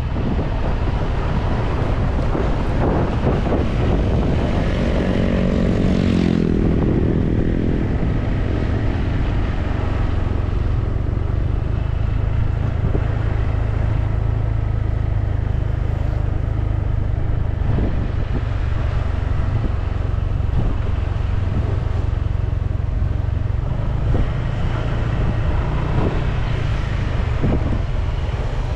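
Riding a Honda PCX 150 scooter, its small single-cylinder engine running under steady wind rumble on the microphone, with road noise. About five seconds in, a pitched engine drone swells for two or three seconds.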